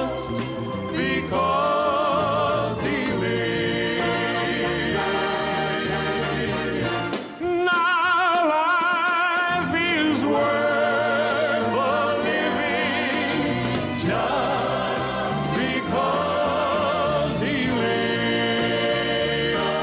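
Gospel music: voices holding long sung notes with vibrato over instrumental accompaniment, with a brief drop in level about seven seconds in.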